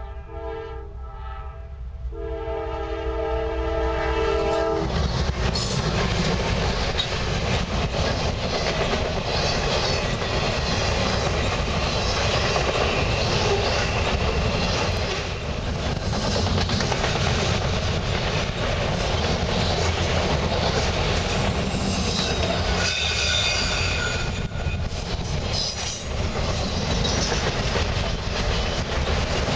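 A Norfolk Southern freight locomotive's air horn sounds for about five seconds, broken twice and ending in a longer blast. Then the loud rumble and clickety-clack of a fast freight train of autorack cars rolling past, with a brief high-pitched tone about three quarters of the way in.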